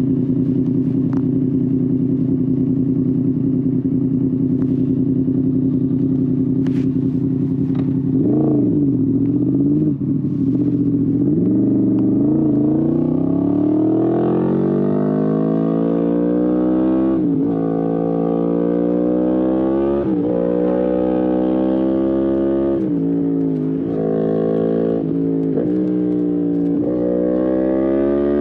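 Yamaha MT-10 SP's crossplane inline-four through an Akrapovic exhaust, idling steadily for about eight seconds. The rider then blips the throttle twice and pulls away, the revs climbing and dropping sharply at each of several upshifts as the bike accelerates.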